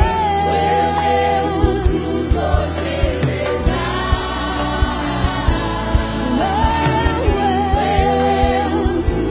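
Gospel band playing live: a woman sings long held notes with backing singers, over drums and bass guitar.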